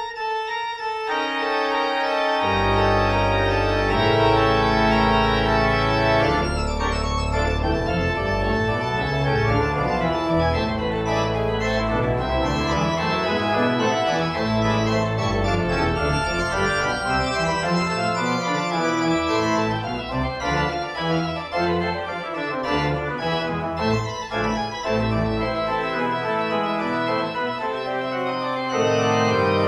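Organ music: sustained chords that change slowly, with deep bass notes coming in about two and a half seconds in.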